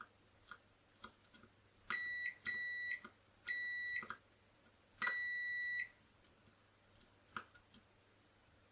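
Multimeter continuity tester beeping: four steady, high-pitched beeps of uneven length between about two and six seconds in, each marking a closed connection between the probes. Light clicks of the probe tips touching contacts come before and after.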